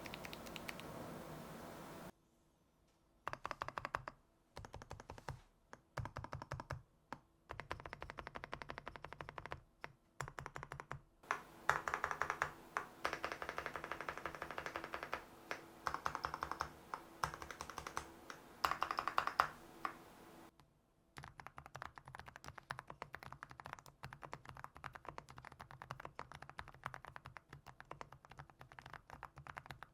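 Typing on a mechanical keyboard fitted with SPM x HMX Moksae Tactile semi-silent switches: fast runs of soft, cushioned keystrokes broken by short pauses.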